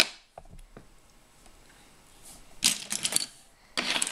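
Loose plastic Lego pieces clicking and clattering as a hand sifts through a pile of them on a table. A sharp click comes at the start, then a fairly quiet stretch, then two short spells of rattling clatter in the second half.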